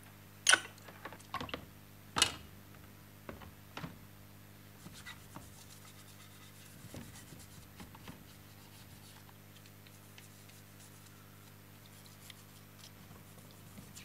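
A few sharp knocks and splashes as tape-recorder parts go into a plastic tub of soapy water, the loudest about half a second and two seconds in. From about five seconds in, a faint steady scratching of a bristle brush scrubbing a metal part under the water.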